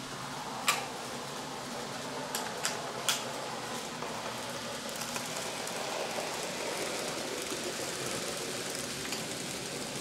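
N gauge model train running on the layout's track with a steady whirring rattle that grows a little louder as it passes close, after a few sharp clicks in the first three seconds.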